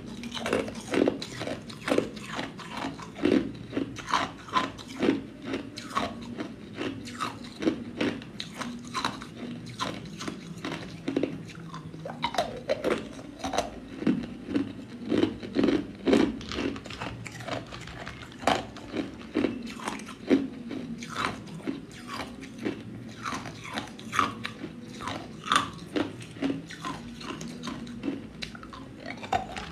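Clear ice cubes being bitten and chewed: a rapid, uneven run of sharp cracks and crunches.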